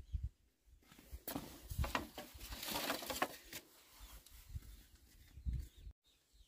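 Green bamboo poles knocking and scraping together in a pile, starting about a second in and lasting a couple of seconds, then a few soft low thuds.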